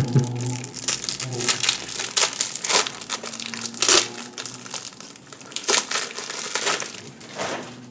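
Plastic packaging of a pack of top loaders (rigid plastic card holders) crinkling and rustling in irregular bursts as it is torn open and handled.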